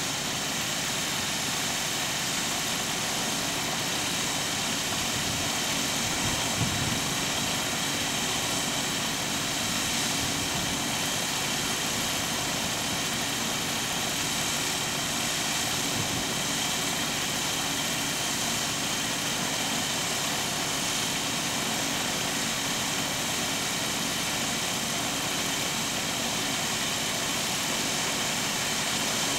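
An engine idling steadily, an unchanging drone.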